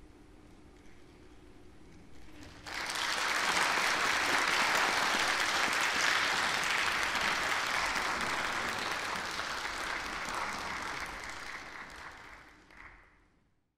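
Audience applause in a concert hall, starting suddenly about three seconds in, holding steady, then fading away near the end.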